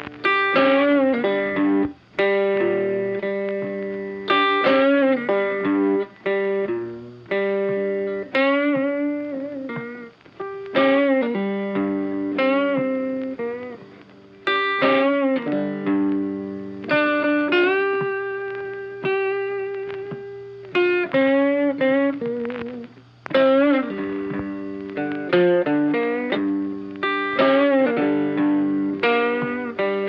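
Blues guitar music: single plucked notes and short phrases, many of them bent up and down in pitch.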